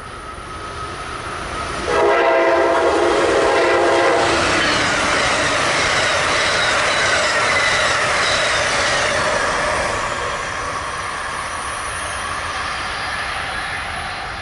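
Electric passenger train horn sounding one blast of about two seconds, a sudden chord. The train then passes at speed with a loud rush of wheels on rail, easing a little after about ten seconds.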